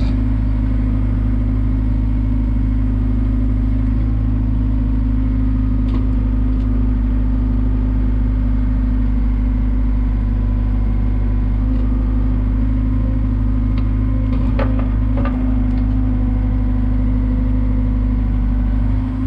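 Komatsu excavator's diesel engine running at a steady speed, with a few short knocks about three-quarters of the way through.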